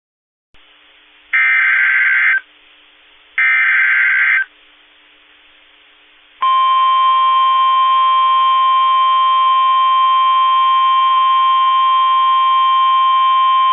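Emergency Alert System signal on weather radio: two one-second bursts of screechy SAME header data tones over faint radio hiss, then a loud, steady single-pitch alert tone from about halfway through, marking the start of a new warning.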